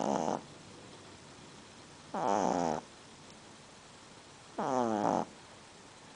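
Pug snoring, a snore about every two and a half seconds: the tail of one at the start, then two full snores, each under a second long, with quiet between them.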